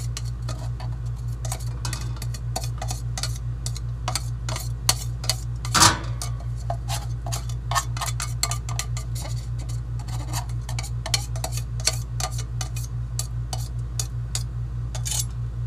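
Chef's knife scraping and tapping inside a plastic onion chopper's cup, knocking chopped onion out into a skillet: many small irregular clicks and taps, with one louder knock about six seconds in. A steady low hum runs underneath.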